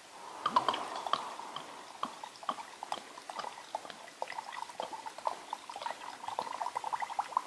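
Grain spirit (Doppelkorn) glugging out of the neck of a glass bottle into a glass jar. The glugs come faster and closer together near the end.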